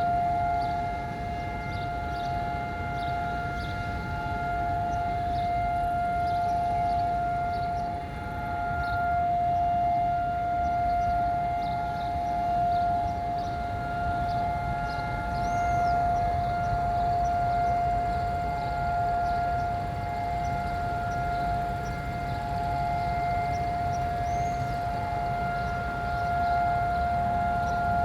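Civil-defence sirens sounding one steady, unbroken tone that neither rises nor falls: Israel's two-minute Holocaust Remembrance Day siren.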